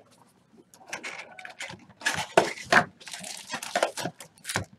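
Plastic shrink wrap on a box of trading cards being punctured with a pen and torn off: a run of crinkling, crackling rustles, loudest in the middle.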